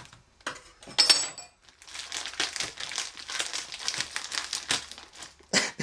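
Plastic packaging of a microwave ready meal crinkling as it is pierced and handled. There is a sharp knock about a second in and another near the end.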